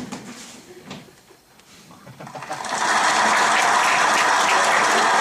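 Audience applause, coming up about two and a half seconds in and quickly building to a steady, dense clapping.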